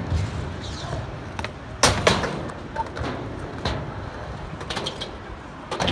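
Skateboard wheels rolling on a ramp, with several sharp clacks of the board; the loudest pair comes about two seconds in.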